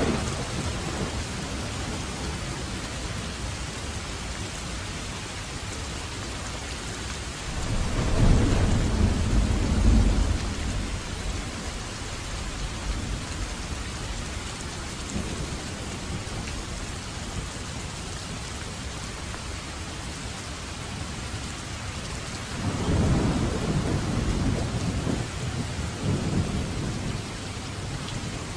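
Steady rain falling, with two rolls of thunder rumbling through it, one about a quarter of the way in and a longer one past the three-quarter mark.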